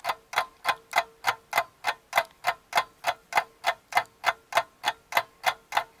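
Ticking-clock sound effect, steady and even at about four ticks a second.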